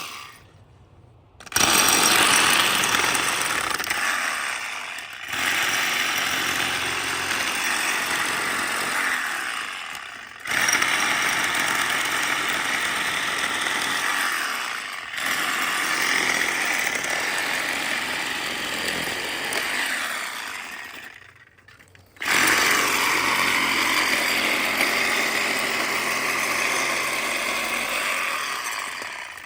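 Cordless DeWalt reciprocating saw fitted with a Diablo pruning blade, cutting through branches in five runs of a few seconds each, stopping briefly between cuts.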